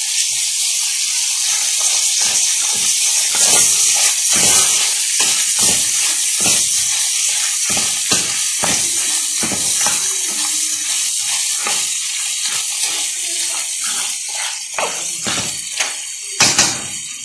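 Whole crayfish and freshly added diced onion sizzling in hot oil in a pan, a steady loud hiss. They are being stirred, with many quick clicks and clatters of shells and utensil against the pan, a couple of louder knocks near the end.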